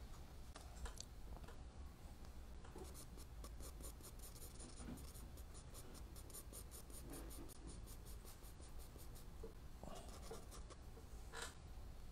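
Charcoal pencil scratching on sketchbook paper in quick, repeated short strokes as a portrait is shaded. The sound is faint.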